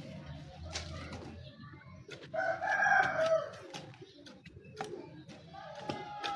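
A rooster crowing once, a call of about a second and a half starting a little over two seconds in, among scattered short knocks.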